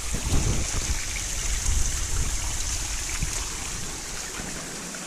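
Small stream trickling and splashing down a rocky gully, a steady hiss of running water. A low rumble on the microphone fades out over the first few seconds.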